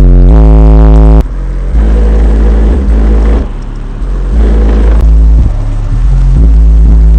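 Bass-heavy music played very loud through two 8-inch car subwoofers, with deep, sustained bass notes that shift in pitch. The level drops for a few seconds about a second in, then comes back up.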